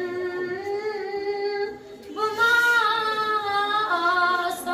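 A boy's voice singing a Kashmiri naat unaccompanied, in long held, wavering notes. There is a short breath about two seconds in, then a slightly higher, louder phrase.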